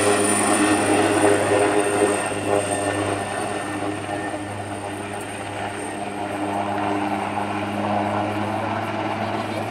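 Attack helicopter flying a display pass: a steady rotor and engine drone with a thin, high turbine whine over it, louder at first, easing off in the middle and swelling again near the end.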